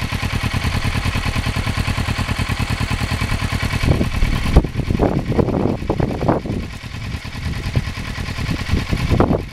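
Motorcycle engine idling with a steady, fast pulse. About halfway through the sound turns uneven, with irregular low bursts.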